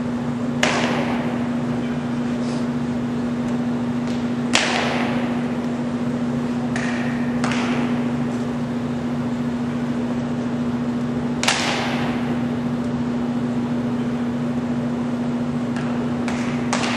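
Three sharp drill stamps of a cadet flag party, spread several seconds apart, each ringing out in the echo of a large hall over a steady hum. Near the end come quicker, lighter taps of boots on the hard floor.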